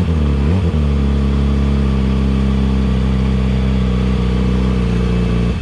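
Yamaha YZF-R6's inline-four engine through a LeoVince aftermarket exhaust, revving up and down briefly, then held at a steady engine speed for several seconds before the revs drop away right at the end.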